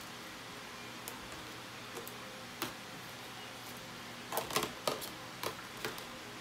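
Light clicks and knocks of plastic feeding-bottle parts and tongs being handled in a plastic tray, a few single ones and then a quick cluster about four and a half seconds in, over a steady room hum.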